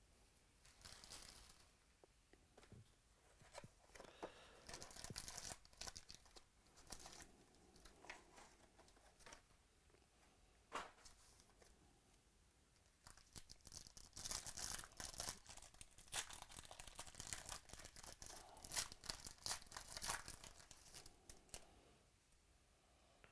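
Foil wrapper of a Panini XR football card pack crinkling and tearing as it is opened by hand, in faint irregular crackles that are busiest over the second half.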